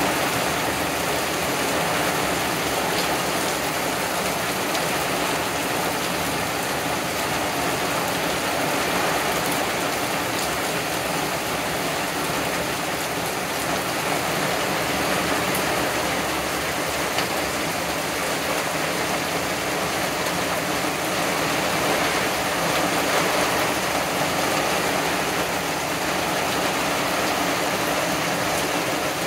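Heavy thunderstorm rain falling steadily on a wooden deck and the surrounding woodland trees, an even hiss with no change in level.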